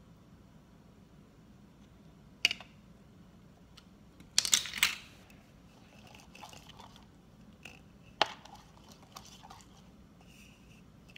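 Slime mixture being stirred in a bowl: a few short wet squelches and clicks, the loudest cluster about four and a half seconds in.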